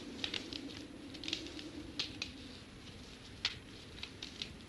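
Scattered light crackles and ticks over a faint low steady drone, with a sharper snap about two seconds in and another about three and a half seconds in.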